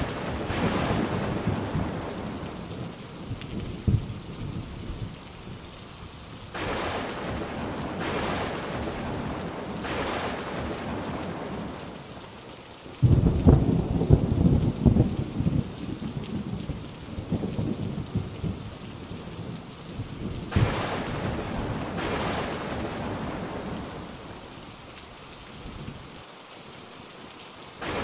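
Heavy rain falling steadily with rolling thunder. A sudden loud thunderclap comes about halfway through and rumbles on for several seconds.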